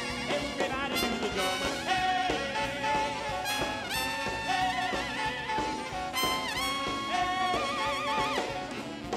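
Live swing band with the horn section to the fore: trumpet, trombone and saxophones playing an instrumental passage over drums, with wavering shakes on held notes and quick dips in pitch. The band stops on a final hit at the very end.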